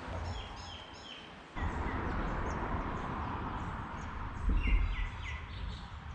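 Small birds chirping in runs of short repeated notes over a steady outdoor hiss, with a brief low rumble about four and a half seconds in.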